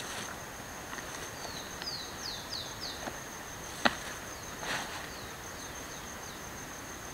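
Woodland ambience: a steady high-pitched insect drone under a bird calling runs of quick falling notes. A single sharp click about four seconds in, followed by a short rustle in the pine needles.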